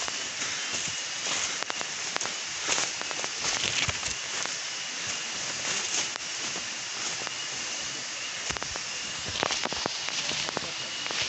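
Footsteps through dry leaf litter and undergrowth, with leaves and twigs crackling irregularly and brushing close to the microphone, over a steady hiss with a thin high tone.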